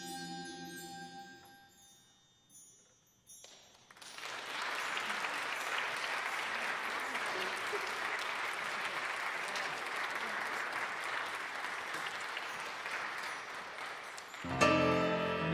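The last held chord of the choir piece fades away over the first couple of seconds. Then the congregation applauds steadily for about ten seconds. Near the end, instrumental music abruptly begins.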